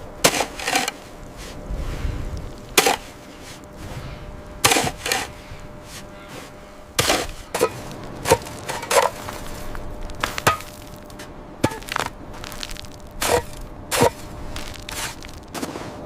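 A series of sharp cracks and knocks, irregularly spaced at roughly one a second, some coming in quick pairs.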